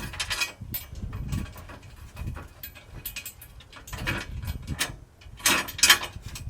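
Metal clicking and clanking of hand tools and bolts against a steel bash plate as its bolts are fitted loosely, in irregular bursts, the loudest about five and a half to six seconds in.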